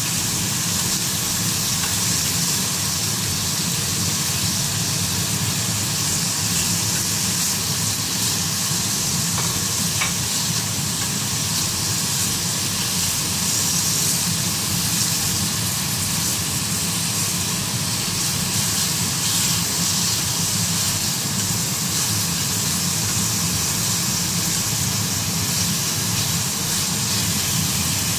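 Thin slices of beef frying in oil in a pan, sizzling steadily.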